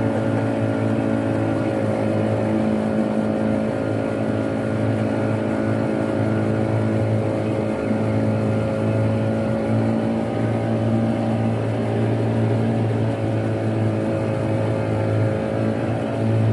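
Boat engine running steadily at constant speed, an even low hum with no change in pitch.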